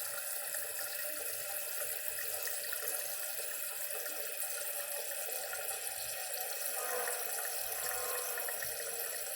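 Toilet running after a flush: a steady hiss of water flowing in as the tank and bowl refill.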